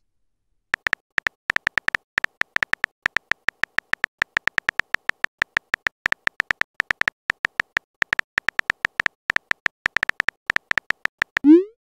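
Simulated phone-keyboard typing clicks from a texting-story app: short, sharp taps, several a second, as a message is typed out letter by letter. They begin about a second in and stop just before the end.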